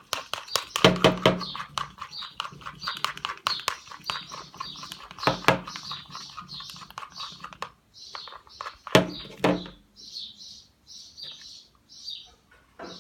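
Sticky PVA-glue and detergent slime being stirred and squished, with wet clicks and a few louder knocks. Over it, a small bird chirps steadily, two or three short chirps a second.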